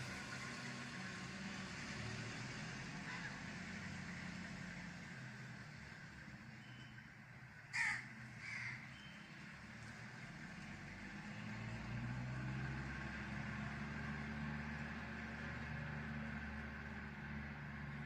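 Crows cawing: two short caws about eight seconds in, the first loud and close, the second fainter. Behind them is a steady hiss and a low hum that grows louder later on.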